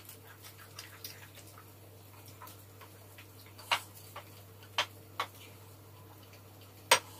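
Chopsticks clicking and scraping against a ceramic plate as a buckwheat pancake is torn apart: a few scattered sharp clicks, the loudest near the end.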